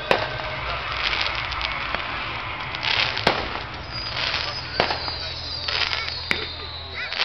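Aerial fireworks bursting: several sharp bangs, the loudest about a second and a half apart, over steady crackling from the shells' stars.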